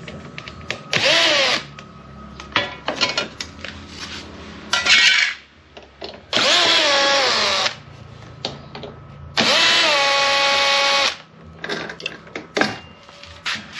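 Cordless drill-driver backing out the screws of a plastic licence-plate bracket, running in several short bursts, each starting with a whine that rises in pitch and then holds. Between the bursts the loose plastic bracket and screws click and knock.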